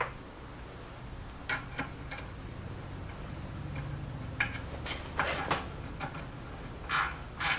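Scattered light clicks and knocks of hands handling parts on a Ford C4 automatic transmission case on a workbench, busier about halfway through, then a few louder clatters near the end.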